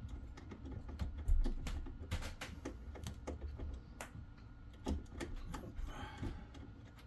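Irregular small clicks and taps of hands working a bare wire into a screw terminal block, with a low thump about a second in.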